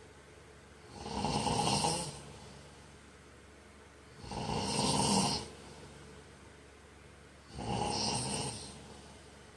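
A man snoring in his sleep: three snores, each about a second long, evenly spaced about three seconds apart, with much quieter breathing between them.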